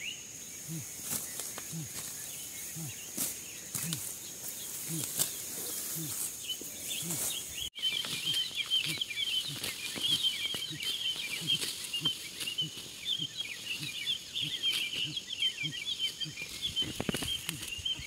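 Outdoor field ambience: a steady high insect drone and a low sound repeating about once a second, with scattered faint clicks and rustles. After an abrupt cut about eight seconds in, dense high chirping of birds or insects joins in and is the loudest sound.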